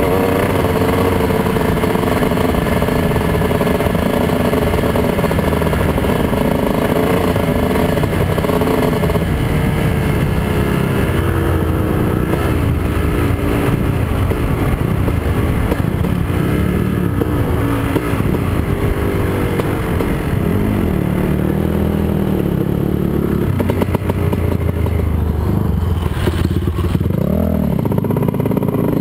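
Honda TRX450R sport quad's single-cylinder four-stroke engine running at speed on a dirt trail, its revs rising and falling with the throttle. Near the end there is a quick rev up and back down.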